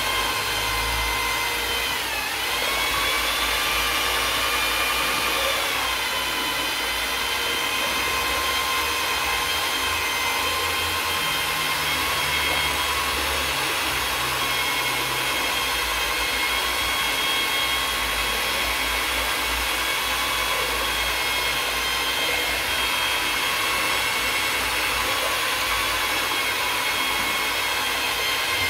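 Electric drill with a paddle mixer stirring white emulsion paint in a bucket, its motor whining steadily. The pitch dips briefly about two seconds in and shifts again around six seconds as the paddle's load changes.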